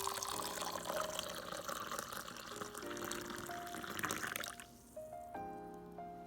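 Water running into a vessel, a steady splashing hiss that stops about four and a half seconds in, over soft piano background music.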